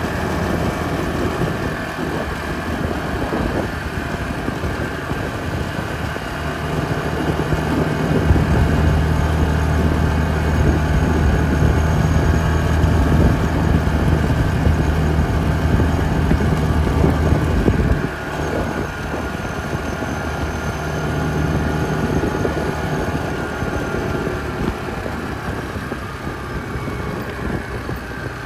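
Yamaha Grizzly 450 ATV's single-cylinder four-stroke engine running while the ATV is ridden. It gets louder from about eight seconds in and drops back suddenly about eighteen seconds in.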